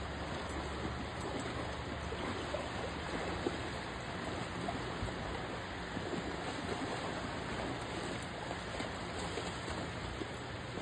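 Steady rush of flowing creek water, an even hiss with no distinct events.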